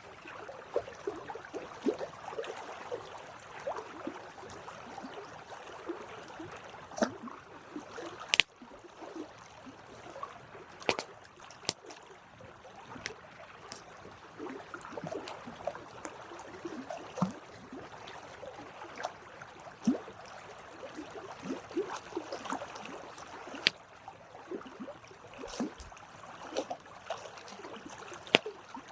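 Wood campfire burning, with irregular crackles and sharp pops, a few of them louder, over a soft hissing, bubbling sound.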